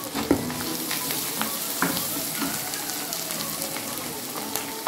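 Onion and ginger-garlic masala sizzling in hot oil in a kadhai. A wooden spatula scrapes and taps the pan as freshly added red chilli powder is stirred in, with a sharp knock near the end.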